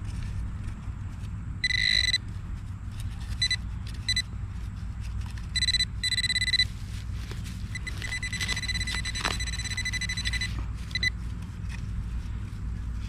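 Metal-detecting pinpointer sounding a steady high electronic tone in on-off stretches as it passes over a shallow buried target. The longest tone runs about two seconds, starting about eight seconds in.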